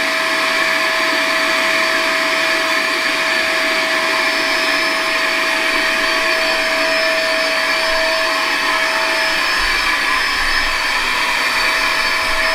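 Vacuum cleaner running steadily with a constant whine, sucking the air out of a plastic film wrapped around a foam cushion so the foam compresses for stuffing into its cover.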